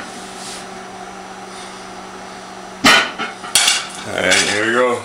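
Nonstick frying pan set back down on an electric stove's coil burner with a sharp metal clank about three seconds in, then a couple of lighter knocks as it settles. A short wavering pitched sound follows near the end.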